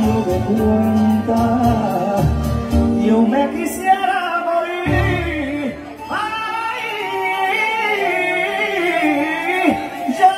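A man singing live into a microphone over backing music played through PA speakers.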